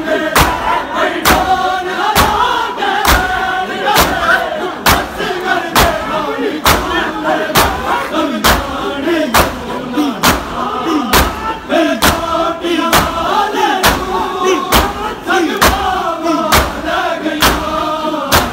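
A crowd of mourners chanting a noha (Shia lament) together, with a loud collective chest-beat (matam) landing in time about once a second.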